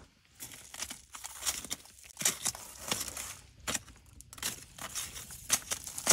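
Irregular rustling and crinkling, a quick run of crackly rasps and brushes that starts about half a second in and keeps going without a steady rhythm.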